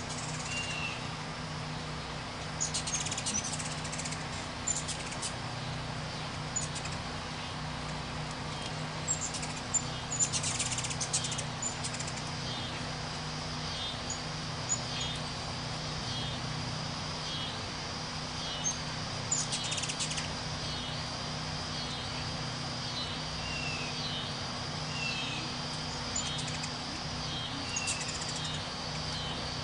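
Ruby-throated hummingbirds at a feeder: wing whirring and clusters of sharp, high chips and chatter, three times, early, near the middle and about two-thirds through, over a steady faint hum. From about halfway, a high call repeats roughly once a second.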